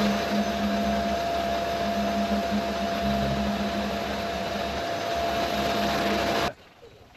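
Vacuum-type workshop machine, such as a dust extractor used during sanding prep, running with a steady whine and hum; it cuts off suddenly about six and a half seconds in.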